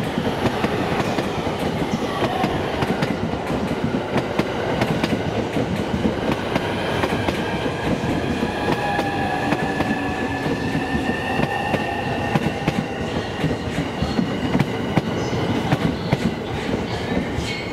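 Commuter electric train pulling out past a platform, its wheels clicking over the rail joints, with a steady whine behind the rolling noise.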